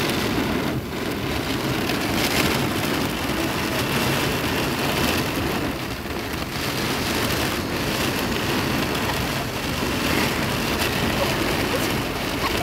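Heavy rain beating steadily on window glass, a dense, even downpour heard from inside behind the glass.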